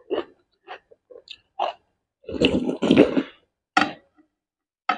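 Close-up eating sounds: short lip smacks and chewing noises, with a longer, louder slurp about two and a half seconds in as soup is sipped from a spoon.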